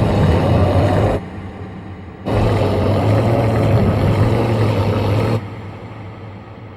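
Dinosaur-creature growl sound effect: a short, deep growl about a second long, then a longer one of about three seconds. Each stops abruptly and leaves a fading echo.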